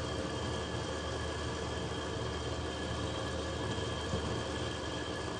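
A steady mechanical hum with a few faint, fixed whining tones above it, unchanging throughout.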